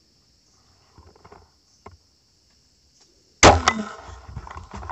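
Homemade fishing crossbow firing: a few seconds of near-quiet while aiming, then a sudden loud snap of the release about three and a half seconds in, followed by a rough clatter as the bolt's braided line pays out from the reel.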